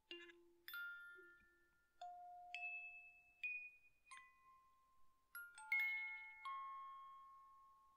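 Quiet background music of slow, sparse, bell-like notes, each ringing on and fading away.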